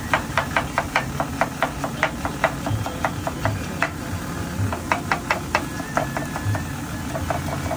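Knife chopping green capsicum on a wooden chopping board: quick, even knocks about five a second, pausing for about a second near the middle before resuming.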